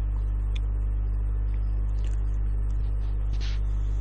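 Steady low electrical mains hum, with a few faint scratchy handling noises on the watch case; the clearest is a short hiss about three and a half seconds in.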